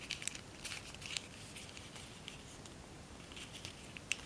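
Faint crinkling and crackling of tissue-foil origami paper pinched and shaped between fingers, in scattered small clicks, most in the first second or so and a sharper one near the end.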